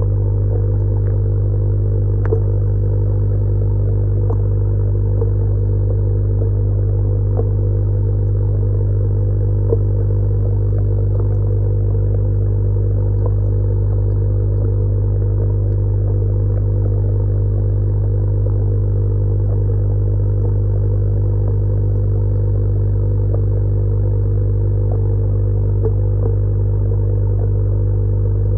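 Steady mains hum of an electric aquarium air pump feeding a submerged Suisaku sponge filter, with faint scattered ticks.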